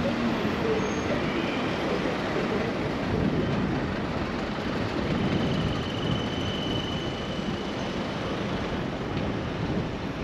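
Steady traffic and road noise heard from a bicycle moving through city streets.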